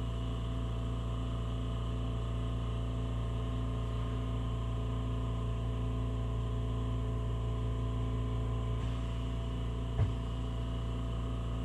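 Small oxy-propane torch burning steadily, its flame held against a test sample, with a continuous even hiss and low hum. A single short knock about ten seconds in.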